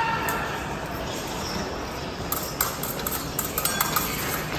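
Fencing blades clashing: a rapid cluster of sharp metallic clicks and clinks of steel on steel about halfway through, one with a brief ring, over a steady hum of a large hall.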